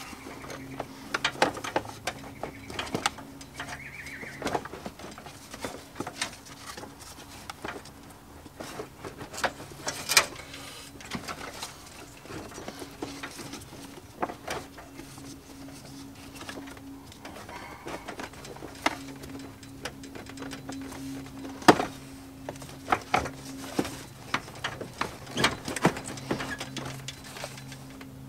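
Irregular plastic clicks, knocks and rattles as the truck's loosened air-conditioner housing is wiggled and worked behind the pulled-back dashboard, with one sharp knock about three quarters of the way through.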